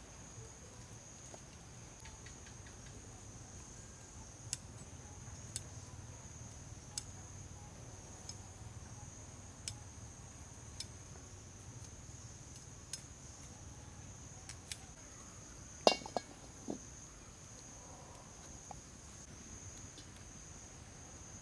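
Sparse, sharp knife taps on a wooden chopping board as broccoli is cut, with a louder clatter about three-quarters of the way through. A steady high-pitched insect drone runs underneath.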